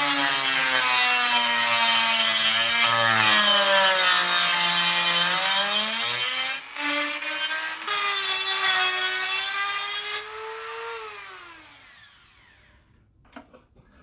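Dremel rotary tool with a grinding-stone bit grinding out a hole in a metal lawn mower handle piece, its whine sagging in pitch as it bears on the metal and picking up again. It stops briefly about six and a half seconds in, runs again, then is switched off about ten seconds in and winds down with a falling whine; a few faint clicks follow near the end.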